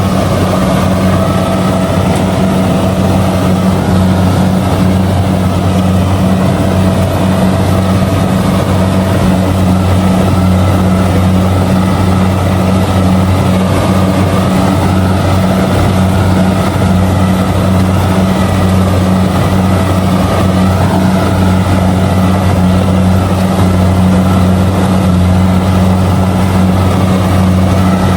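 Kubota DC70G combine harvester running steadily while harvesting rice: a loud, even engine drone that does not change pitch.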